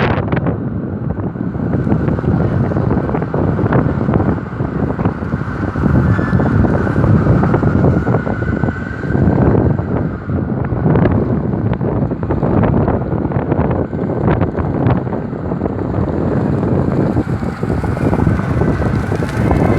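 Wind buffeting the microphone over street traffic noise, a dense rumbling hiss that swells and dips, with a few scattered knocks.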